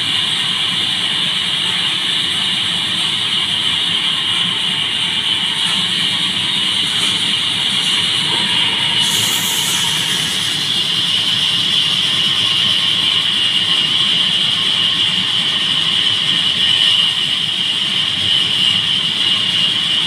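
Horizontal band sawmill running with a steady high-pitched whine as its band blade saws into a log on the carriage, a little louder in the second half.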